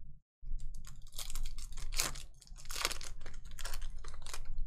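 Foil wrapper of a 2020 Panini Contenders football hobby pack crinkling and tearing as it is ripped open by hand, a quick run of crackles.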